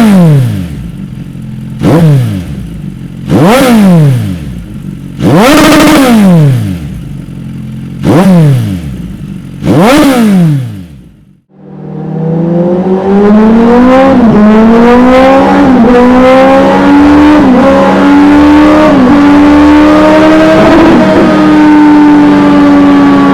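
Suzuki GSX 1250 FA inline-four motorcycle engine revved through its exhaust: five quick throttle blips, each rising fast and falling away. After a brief drop-out it runs continuously, climbing in pitch in steps with short dips as it shifts up through the gears, then holds a steady high speed.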